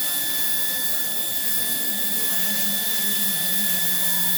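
An electric power tool running steadily, a high whine over a constant hiss.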